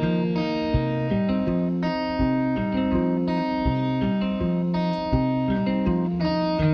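Background music led by guitar, a steady run of held chords that change about once a second.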